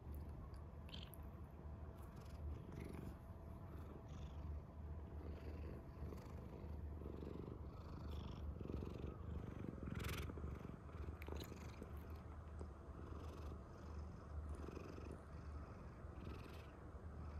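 Domestic cat purring close up, a steady low purr that swells and eases with each breath. Soft rustles of fur against the hand and microphone come and go over it, one louder about ten seconds in.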